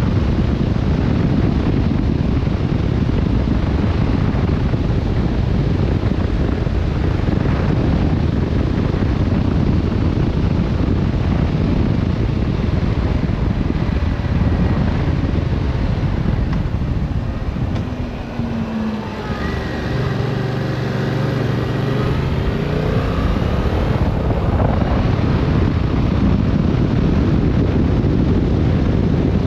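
Wind buffeting the helmet-mounted microphone of a Yamaha Tracer 7 at road speed, with its 689 cc parallel-twin engine running underneath. About two-thirds of the way through, the wind eases as the bike slows and the engine note drops, then the engine note rises again as it accelerates away.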